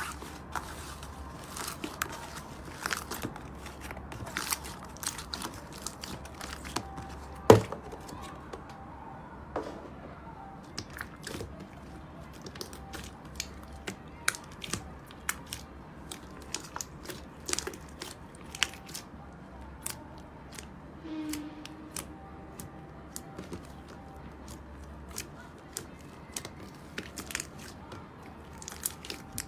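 Slime being pressed and pulled by hand: scattered sticky crackles and pops, with one loud slap about seven and a half seconds in.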